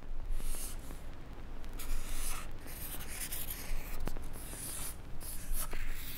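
Felt-tip marker writing on a lined paper legal pad: a run of short scratchy strokes as the letters are drawn.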